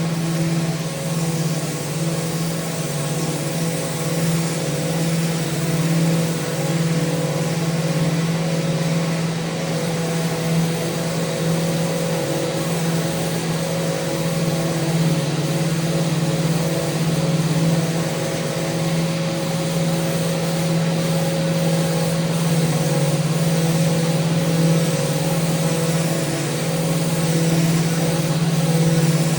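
Electric power sander running steadily against a mounted handrail, a constant motor hum under a sanding hiss that swells and eases slightly as it is worked along the rail.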